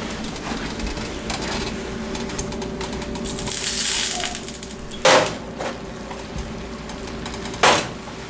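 Kitchen clatter of cookware and utensils: small metal clinks and taps, a brief hiss around four seconds in, and two sharp clanks about five and seven and a half seconds in.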